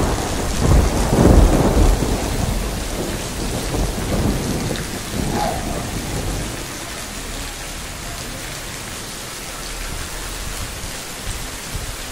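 Heavy rain falling, a steady hiss, with a low rumble in the first few seconds that dies away about halfway through.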